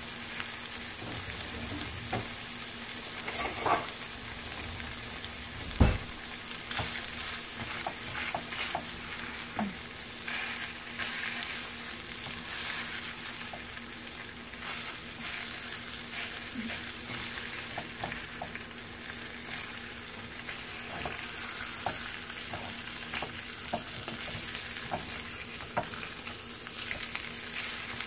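Slices of leftover meatloaf sizzling steadily in a little oil in a nonstick ceramic pan, with small crackles and the odd scrape and tap of a spatula against the pan. There is one sharp thump about six seconds in.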